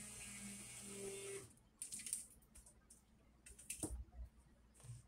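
Faint steady electrical hum, which stops about a second and a half in; after that, a few short faint clicks and knocks.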